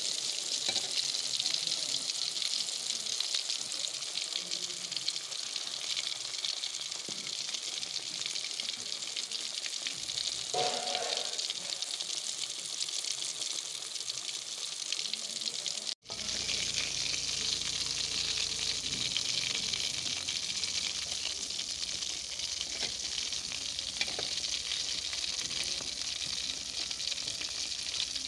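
Pangas (pangasius) fish steaks frying in a pan of hot oil, rendered from the fish itself, with a steady, crackly sizzle. The sound cuts out for an instant about halfway, then carries on.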